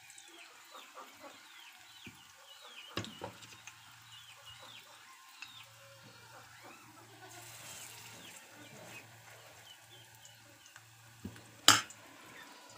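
Cabbage pakoras frying in hot oil in a steel kadai, a quiet sizzle on a low flame, with a stream of short high chirps over it. There is one sharp knock near the end.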